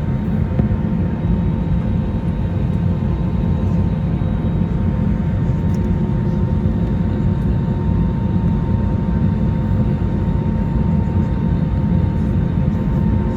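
Steady jet-engine and airflow rumble heard inside the cabin of an Airbus A321neo with Pratt & Whitney PW1133G geared turbofans, with a faint steady whine riding above it.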